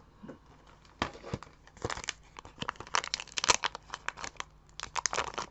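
Thin foil wrapper of a Japanese Pokémon booster pack crinkling and tearing as it is worked open by hand, a run of crisp crackles starting about a second in.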